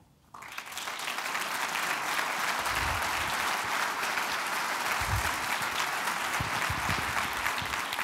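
Audience applauding, breaking out suddenly right away and keeping up steadily, with a couple of low thumps in the middle.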